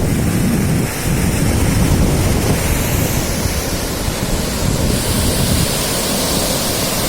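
Sea waves washing onto a beach, a steady surf wash, with wind buffeting the microphone.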